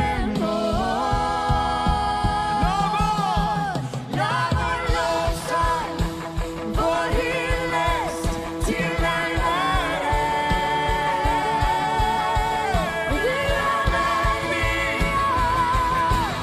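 Live worship song: a woman sings the lead with a wavering vibrato on held notes, over acoustic guitars and a steady drum beat.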